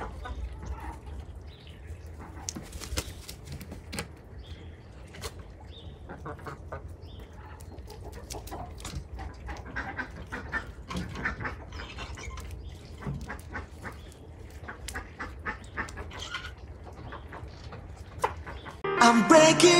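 Indian runner ducks and hens calling, with many short quacks and clucks over a low steady rumble. Music comes in near the end.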